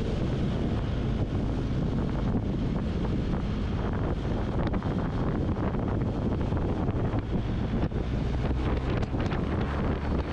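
Wind rushing over the camera microphone on a moving motorcycle, over the steady low drone of its engine at cruising speed.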